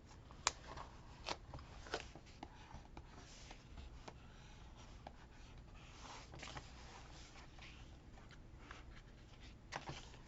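Paper and stickers being handled on a desk: soft rustling with a few sharp ticks, three in the first two seconds and two more near the end.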